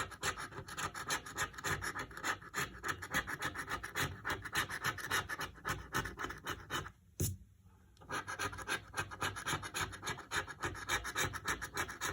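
Scratch-off lottery ticket being scratched: a quick run of short scraping strokes rubbing off the coating, pausing briefly about seven seconds in before the scraping resumes.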